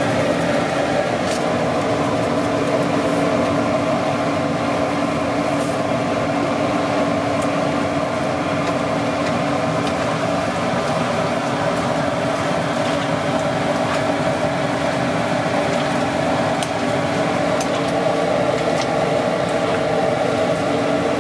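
Steady mechanical hum of kitchen machinery with a constant droning tone, and a few faint light ticks, such as a spoon touching the pot.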